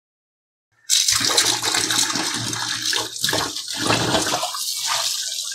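Kitchen tap running hard into a stainless steel sink, water splashing over the dishes being rinsed under it. It starts suddenly about a second in.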